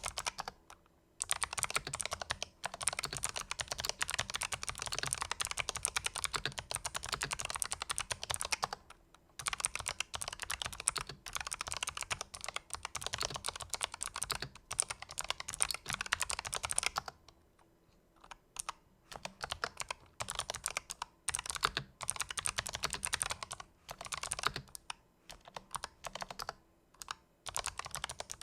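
Typing on a Razer Huntsman Elite keyboard with fully lubricated purple clicky switches: two long runs of fast, dense keystrokes, a brief pause a little past the middle, then slower, separate key presses.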